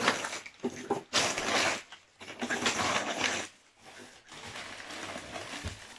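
Crumpled packing paper rustling and crinkling as it is pulled out of a cardboard box, in three bursts, the last one fainter.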